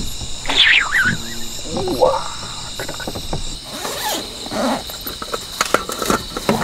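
Crickets or other insects trilling steadily, with short bursts of human voices and a few sharp clicks over them.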